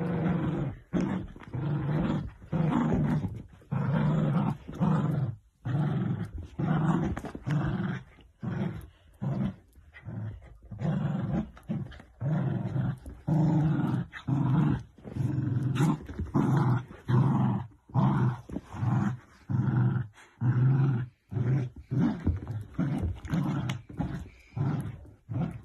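Dachshunds growling in short, repeated bursts, about two a second, as they tug at a plush toy: play growling during tug-of-war.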